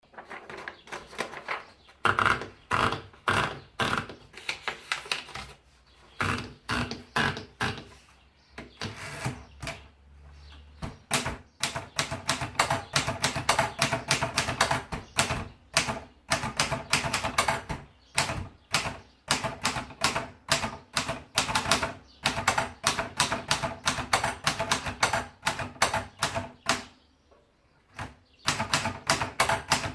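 Empire Aristocrat portable typewriter being typed on: rapid, sharp key strikes at several a second, in bursts with short pauses between them and a longer pause near the end.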